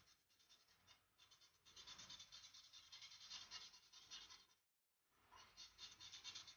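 Faint scratching of a felt-tip marker colouring in on paper, in quick repeated strokes, with a short break about two-thirds of the way through.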